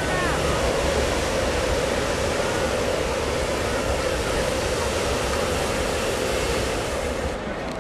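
Hot air balloon propane burner firing with a steady, loud roar, which cuts off shortly before the end.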